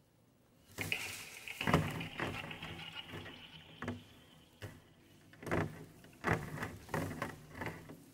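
Handmade sound objects being played in an experimental sound-and-dance piece: a run of irregular rustles, scrapes and light knocks, with a faint high ringing tone that starts about a second in and fades away over a few seconds.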